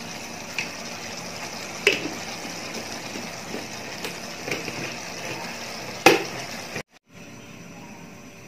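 Chicken pieces simmering in oyster-sauce gravy in a non-stick wok: a steady bubbling hiss broken by a few sharp clicks, the loudest about six seconds in. Near the end the sound cuts to a quieter steady hiss from the wok simmering under its glass lid.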